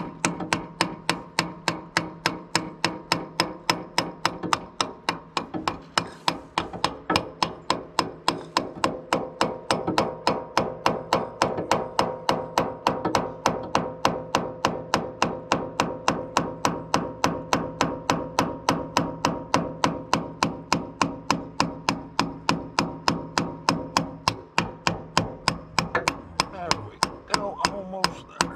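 Steady hammer blows on metal, about three a second, with a ringing note after each strike: a part being driven back into a John Deere 650J's hydraulic lift cylinder during a reseal.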